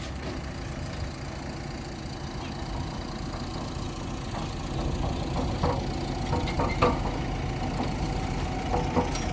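Heavy diesel engine idling steadily, with a few short knocks and clatters in the second half.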